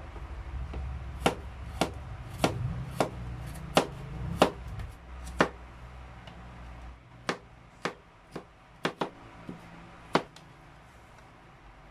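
Kitchen knife chopping garlic cloves on a plastic cutting board: about fourteen sharp, unevenly spaced knocks of the blade hitting the board, louder in the first half, with a low rumble underneath that fades after about seven seconds.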